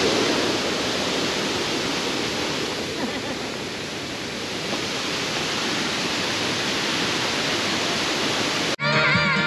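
Steady rushing of a small waterfall, easing a little in the middle. It cuts off sharply near the end, and music begins.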